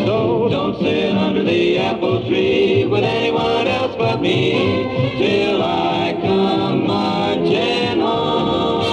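Old swing-era music with group singing, played from a vinyl LP on a Panasonic SD-85 record player stereo.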